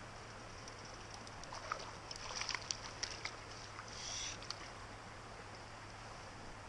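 Small water splashes and drips as a fish is handled at the surface and let go into the creek, with a short splash about four seconds in as it swims off.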